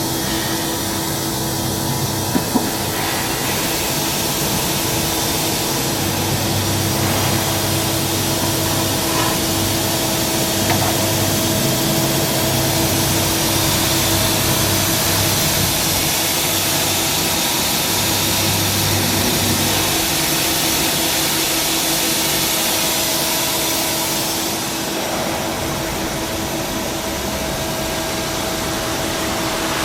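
Tsugami SS32 Swiss-type CNC sliding-headstock lathe running: a steady hiss with a constant hum tone, and a lower drone that comes and goes through the first two-thirds as the machine works. The hiss shifts in character near the end.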